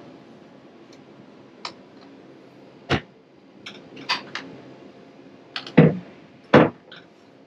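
Scattered light clicks and knocks, with heavier thumps about three seconds in and twice near the end: footsteps and bumps of someone climbing a sailboat's companionway steps.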